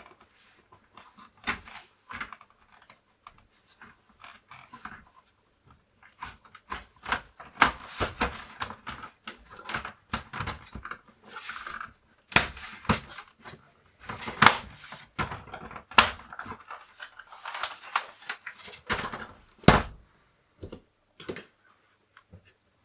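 Irregular clicks and knocks of the Commodore 64's plastic case and parts being handled and fitted back together, sparse at first and busiest in the middle.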